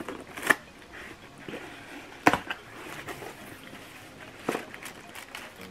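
Cardboard mailer box being torn open by hand along its perforated tear strip: a few sharp snaps, the loudest a little over two seconds in, amid cardboard rustling.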